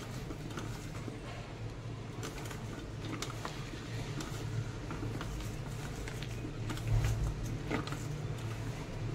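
Hands tossing cut okra coated in gram flour and spices in a stainless-steel bowl: faint soft rustling with a few light clicks of the pieces against the bowl, over a low steady hum.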